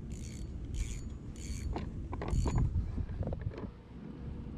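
Fishing reel wound in four short whirring spurts, followed by a run of light clicks and knocks, over a low rumble of wind.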